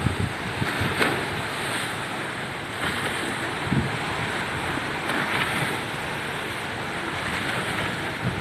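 Steady rush of churned water as a pilot boat runs close alongside a moving ship, its bow wave and wake spraying, with wind buffeting the microphone in occasional gusts.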